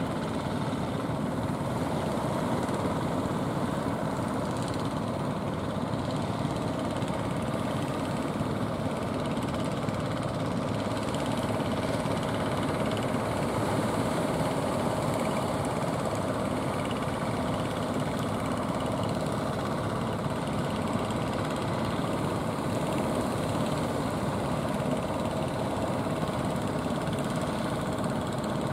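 Inboard engines of a motorized outrigger fishing boat running steadily under way.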